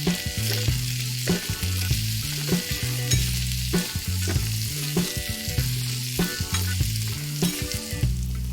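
Food sizzling in hot oil in a miniature pan while being stirred, with small scrapes and clicks of the tiny utensil, over background music.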